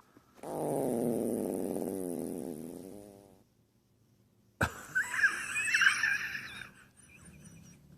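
An animal passing a long, buzzy fart of about three seconds, wavering in pitch and fading out. After a short silence a different high, wavering squeak follows and trails off.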